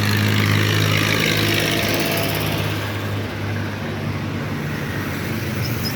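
A motor vehicle engine running steadily with a low hum, amid road traffic noise.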